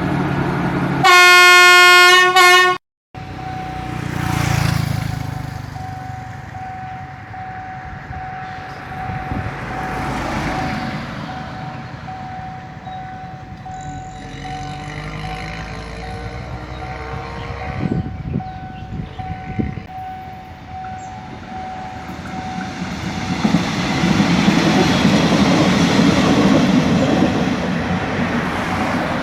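A train horn gives one loud blast about a second in. A level-crossing warning signal then sounds a steady tone for most of the first twenty seconds as the train runs through the crossing, and the rumble of its wheels and engine grows louder near the end.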